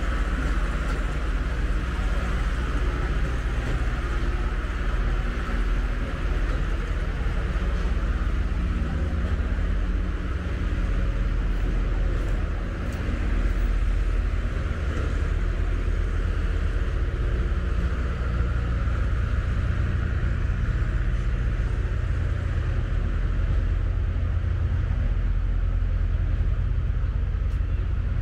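Steady road-traffic rumble from a city street, a constant low drone with no pauses.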